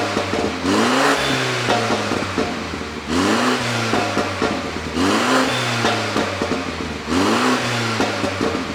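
BMW G30 530i's turbocharged four-cylinder engine revved repeatedly, about every two seconds, each rev rising and falling in pitch. As the revs drop, the exhaust pops and crackles on the overrun, the effect of an ECU pop-and-crackle tune.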